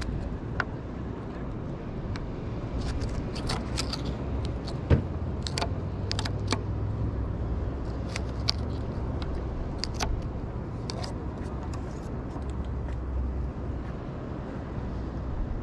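Scattered sharp clicks and scrapes of a serrated knife cutting and prying open bait on a wooden pier railing, over a steady low rumble. One sharp click about five seconds in is the loudest.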